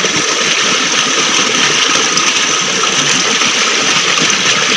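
Rushing stream water running steadily over rocks.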